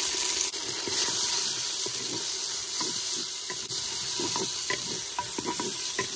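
Sliced onions sizzling in hot oil in a clay pot, stirred with a wooden spoon that scrapes and knocks against the pot. The sizzle is a steady hiss that cuts off suddenly at the end.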